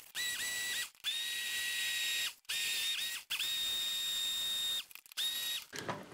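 Electric hand blender puréeing soup in a saucepan: its motor gives a steady high whine, switched on and off in about five bursts lasting from half a second to a second and a half, with short silent breaks between them.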